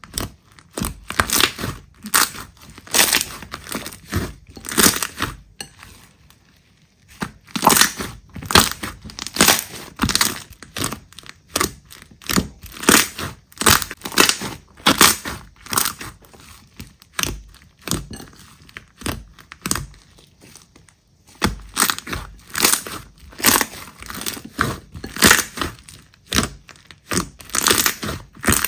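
Slime being squeezed and pressed by hand, giving dense runs of crackling, crunching pops with a couple of short lulls.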